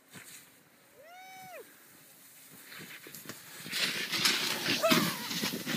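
Snowboard carving through powder close by: a swelling hiss of board edge and sprayed snow, mixed with wind on the microphone, that grows loud past the middle. About a second in, a brief whoop rises and falls.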